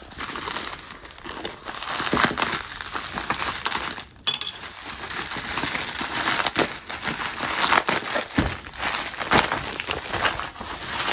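Plastic mailer bag and inner plastic wrapping crinkling and crackling as hands pull them open, with many small sharp crackles and a brief lull about four seconds in.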